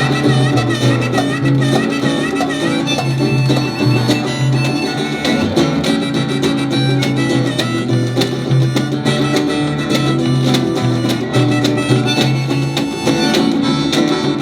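Live band playing an instrumental break with no vocals: a pulsing bass line, drums and a lead melody that wavers in pitch for the first few seconds.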